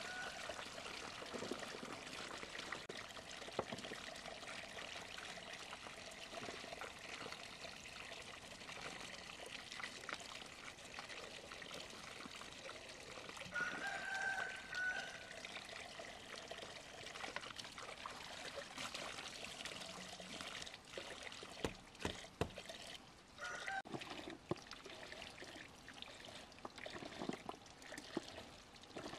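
Water trickling steadily. A chicken calls briefly twice, and a few sharp knocks come about two-thirds of the way through.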